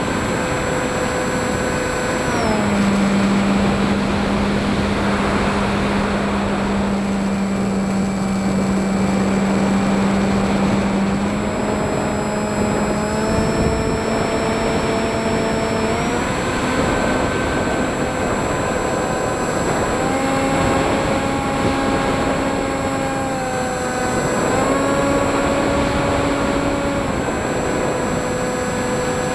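FPV quadcopter's electric motors and propellers whining over a steady rush of air, the pitch stepping up and down several times as the throttle changes.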